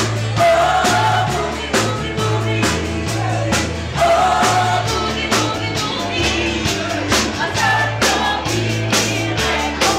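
Live band playing a boogie-woogie with singing over a steady drum beat and a repeating, stepping bass line.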